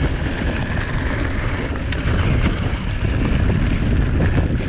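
Wind rushing over the microphone and a mountain bike's tyres rumbling over a rough, rooty trail on a fast descent, with a sharp knock from the bike about two seconds in.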